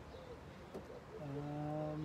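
A man's voice holding a low, steady "hmm" for about a second, starting a little past the middle.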